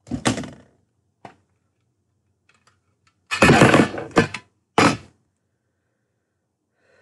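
Handling noises from a small boxed card deck and its packaging: a soft thunk, a faint click, then about a second of scraping and rustling, and a short sharp knock.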